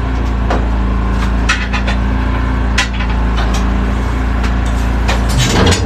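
Steady low hum of a running motor, with scattered sharp clicks and knocks from tire work on a wheel. Near the end comes a cluster of knocks, and the low hum changes pitch.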